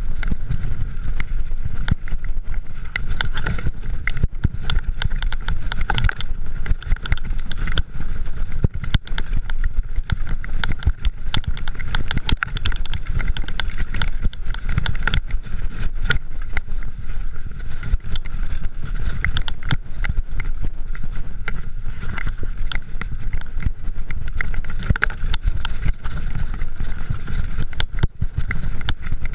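Mountain bike descending fast on a dirt singletrack, heard from a body-mounted action camera: a steady low rumble of wind and tyres, with a constant clatter of rattles and knocks as the bike runs over roots and rough ground.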